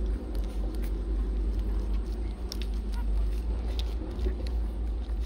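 A steady low rumble throughout, with faint, scattered small clicks from newborn puppies suckling at their mother's teats.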